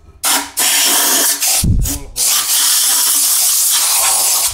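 Compressed-air blow gun blasting into the bolt holes of an aluminium engine block, clearing out small aluminium chips: a loud hiss in bursts, a short one, a longer one, then a long blast, with a low thump a little before the two-second mark.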